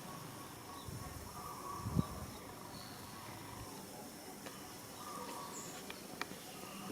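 Rural outdoor ambience of steady insect calls with a few faint bird chirps and clicks; a single low thump about two seconds in.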